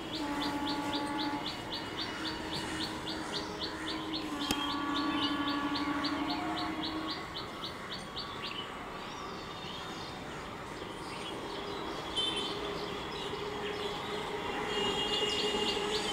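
Electric multiple unit local trains approaching and sounding their horns in steady blasts: one brief, one of about two and a half seconds, and another near the end. Over the first half a bird chirps rapidly, about four times a second.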